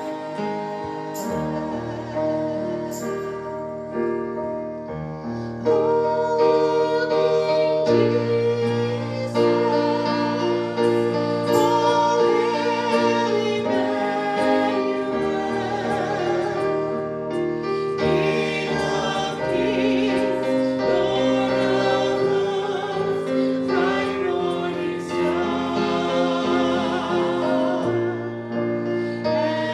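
Worship music: singing with piano accompaniment, held notes sung with vibrato. It grows louder about six seconds in.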